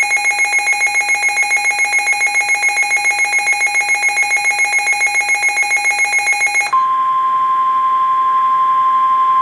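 Weather-alert radio sounding its alert alarm, a loud rapid pulsing beep. About seven seconds in it gives way to the steady single-pitch warning alarm tone of the NOAA Weather Radio broadcast, the tone that comes before a warning is read.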